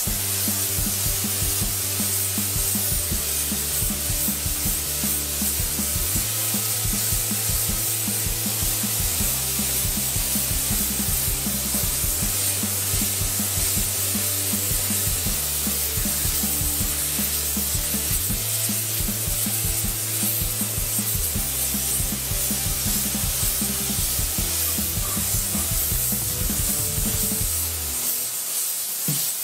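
Background music with a steady beat and a repeating bass line, over the steady hiss of a gravity-feed paint spray gun spraying an engine block.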